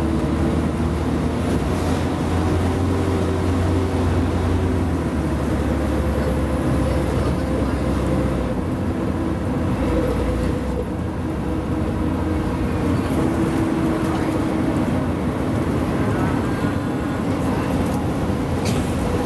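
Diesel engine of a Mercedes-Benz O-500UA articulated bus running steadily, a continuous low drone with steady engine tones above it; the deepest part of the drone eases off about eight seconds in.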